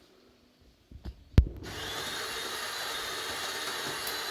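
De'Longhi ECAM 25.452.B bean-to-cup coffee machine clicks sharply about a second in, then starts a steady mechanical buzzing hum that carries on.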